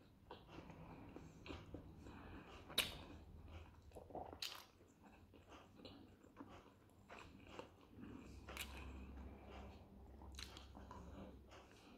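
Faint, close-up chewing and mouth sounds of a man eating a pljeskavica (grilled meat patty) in a bun, with scattered sharp smacking clicks; the loudest comes about three seconds in.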